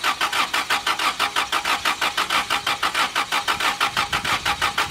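Integra four-cylinder engine being cranked over by its starter, with an even rhythm of about five compression pulses a second and no firing. It cranks but won't catch, even with a newly fitted distributor.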